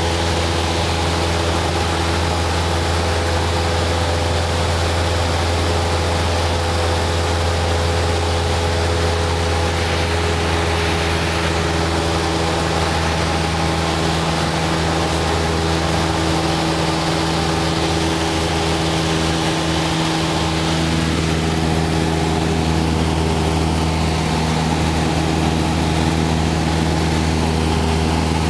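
Cessna 152's four-cylinder Lycoming engine and propeller droning steadily in cruise flight, heard from inside the cabin over a steady hiss of air rushing past the airframe. The engine note shifts slightly about twenty seconds in.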